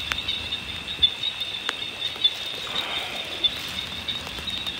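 Night insects trilling steadily in one high, even tone, with three sharp clicks in the first two seconds.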